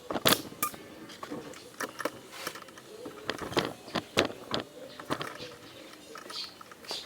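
Irregular clicks and light knocks of a hose and plastic intake-duct parts being handled and pushed back into place in a car's engine bay.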